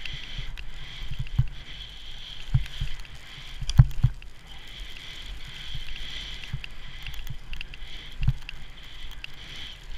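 Skis sliding and hissing through fresh powder snow, with a few dull thumps, the loudest a little under four seconds in.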